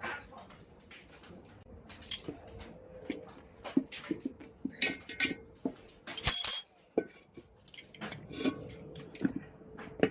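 Tyre levers and metal tools clinking, knocking and scraping on a steel tricycle wheel rim as the tyre bead is pried on bit by bit, with a loud ringing metal clang a little past halfway.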